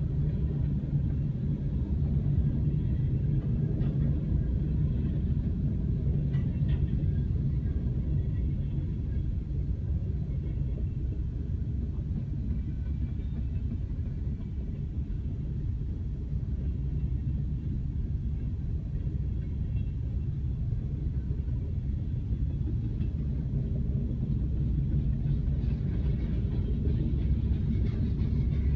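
Freight train cars rolling past a railroad crossing, a steady low rumble heard from inside a car's cabin.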